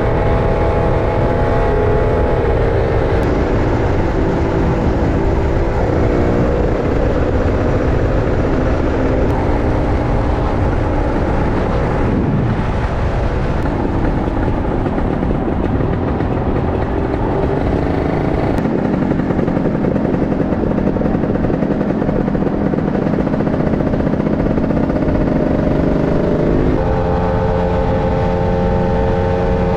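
Motorcycle engine running at road speed with steady wind rush. The engine note steps up and down several times as the throttle and gears change.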